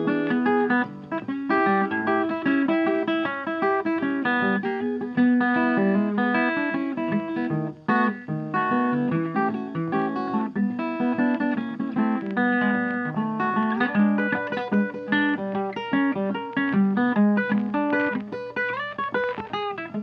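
Background music: a plucked acoustic guitar playing a steady run of notes.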